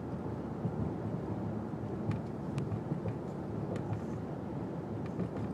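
Steady low rumble of a car's cabin while driving, road and engine noise, with a few faint small clicks.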